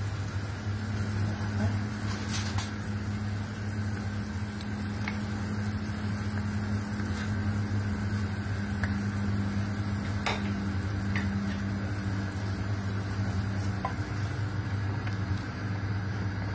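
Chicken pieces simmering in broth in a pan: a steady sizzle over a steady low hum, with a few faint clicks. A spatula stirs the pan near the end.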